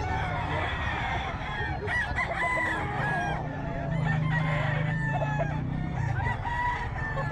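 Many gamecocks crowing and clucking, their calls overlapping, over a steady low hum that grows louder from about four to six seconds in.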